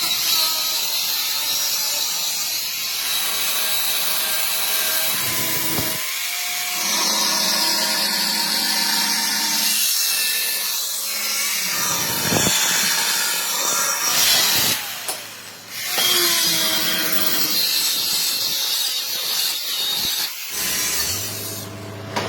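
A power tool grinding or cutting steel, running steadily with a short break about two-thirds of the way through.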